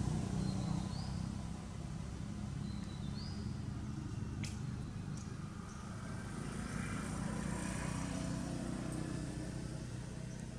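Steady low hum of a motor vehicle engine running off-screen. It eases off after the first second or so and swells again later. Two short, high, rising chirps come early, and a single sharp click falls near the middle.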